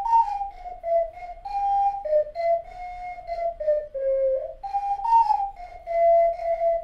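A 12-hole ocarina playing a simple melody, one note at a time, mostly stepping down in pitch, with a puff of breath at the start of many notes. The opening phrase starts again about two thirds of the way through.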